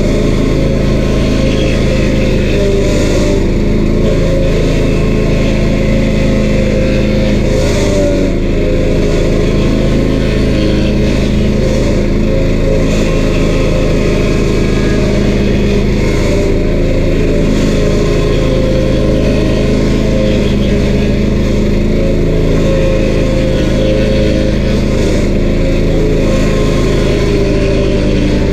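A stump grinder's 13 HP Honda engine running steadily at constant speed.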